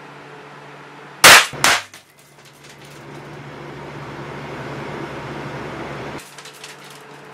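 A .22 Short hollow-point round fired from a Colt Model 4 derringer: one loud, sharp gunshot crack about a second in, followed less than half a second later by a second sharp crack.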